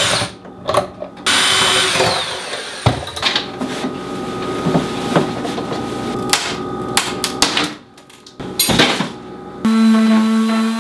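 Electric sander working on wooden cabinet frames: a steady hiss with a faint buzz and scattered knocks, dropping out briefly near the end. Background music starts in the last second.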